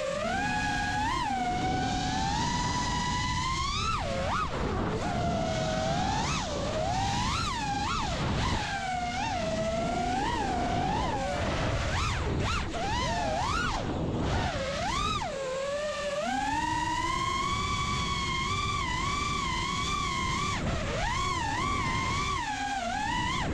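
FPV freestyle quadcopter's brushless motors whining, heard from the onboard camera, the pitch swooping up and down every second or so as the throttle is punched and cut through flips and dives, holding higher and steadier for a few seconds after the middle.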